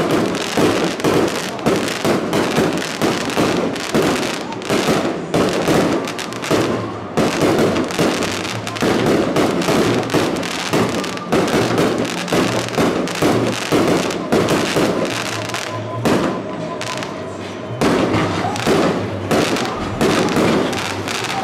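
Fireworks going off in rapid succession: a dense, continuous string of bangs and crackles from aerial shells and rising rockets.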